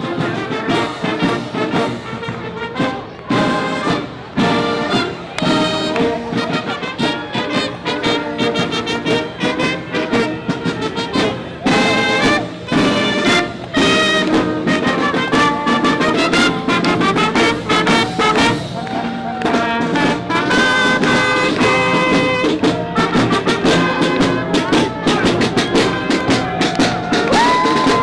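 Brass band music playing, with horns over drums.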